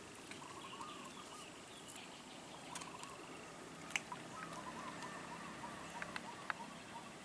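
Birds calling faintly in the background, a short warbling phrase repeated several times, with a few sharp clicks or taps, the loudest about four seconds in.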